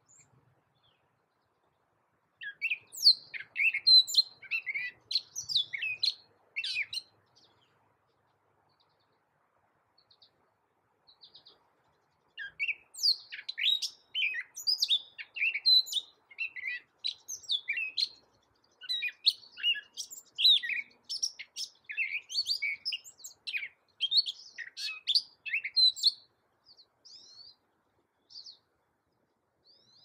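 Gray catbird singing: a jumble of rapid, varied notes, one that changes in pitch from the next. A short run of song comes a couple of seconds in and stops for a few seconds. A longer run follows through the middle, then a few scattered notes near the end.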